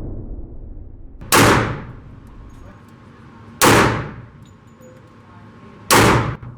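Three slow, evenly spaced shots from a Hi-Point JXP 10mm pistol, a little over two seconds apart. Each shot echoes off the walls of an indoor range.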